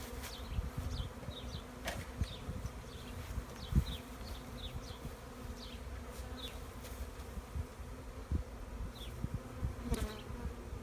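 A mass of honey bees from a freshly shaken package buzzing in a steady hum. Short high chirps repeat throughout, and there are a couple of light knocks, one about two seconds in and one near the end.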